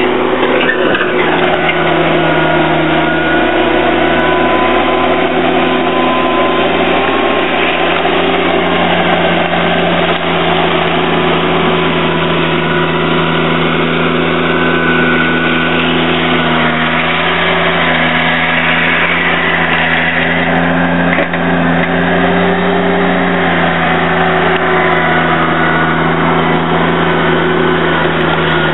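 John Deere 322 garden tractor's three-cylinder engine running steadily under load as its front blade pushes gravel, the pitch shifting slightly up and down.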